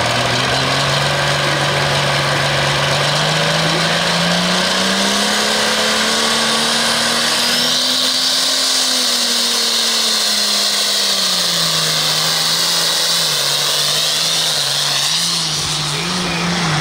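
Light limited super stock pulling tractor's engine revving while the tractor sits hooked to the sled: the pitch climbs slowly over several seconds, eases back down, then wavers up and down near the end.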